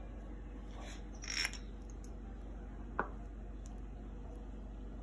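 Table knife spreading jam on a pancake on a plate: one short scrape about a second and a half in and a single sharp click about three seconds in, over a steady faint hiss.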